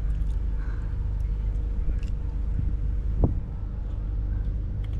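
Steady low hum of an idling engine, with a few faint clicks and a single short knock about three seconds in.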